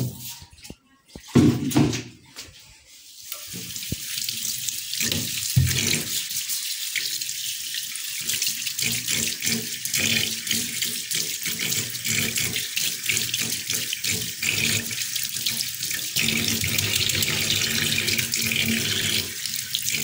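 Tap water running into a laundry sink and over a loofah sponge as it is rinsed by hand, a steady splashing that starts about three seconds in. Before it, a couple of short knocks from handling.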